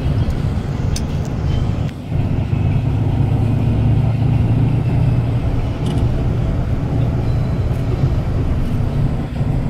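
Steady engine and road noise of a moving vehicle heard from a passenger's seat by an open window: a continuous low drone that dips briefly about two seconds in.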